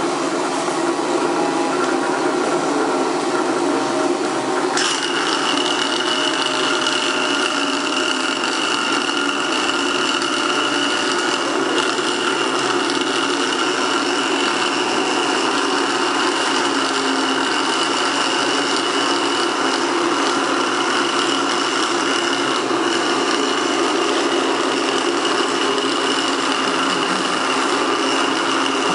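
Small electric motors of several homemade rubbish robots running together in a steady mechanical buzz, with a high steady whine joining about five seconds in.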